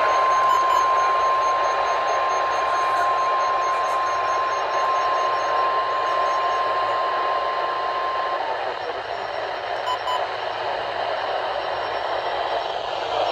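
NOAA Weather Radio 1050 Hz warning alarm tone: one steady high beep held over loud radio static hiss. The tone cuts off about eight seconds in, leaving the static hiss running.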